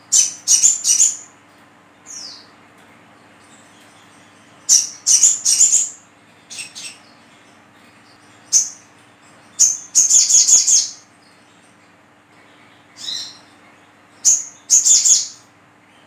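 Olive-backed sunbird (sogok ontong) giving loud bursts of rapid, high-pitched chirping calls, in clusters every few seconds, with a single down-slurred note about two seconds in.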